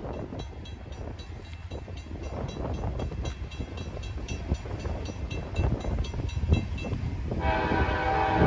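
Low rumble of an approaching CSX freight train, with a grade-crossing bell ringing steadily at about three strokes a second. About seven seconds in, the lead locomotive's horn starts blowing, several tones sounding together.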